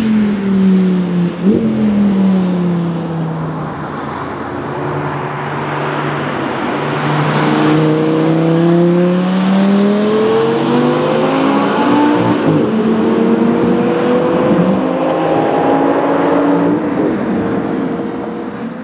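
Audi R8's V10 engine passing by, its note dropping in the first few seconds, then accelerating hard away with the pitch climbing through several upshifts. It fades near the end.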